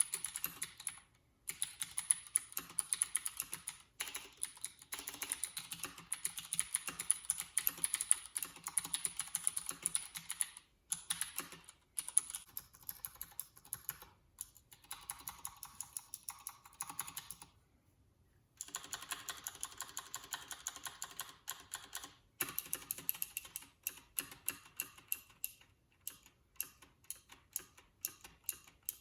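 Fast typing on a Leopold FC750R mechanical keyboard with clicky Cherry MX Blue switches and PBT keycaps: dense runs of sharp, high-pitched key clicks, with short pauses between bursts and one longer pause about two-thirds through.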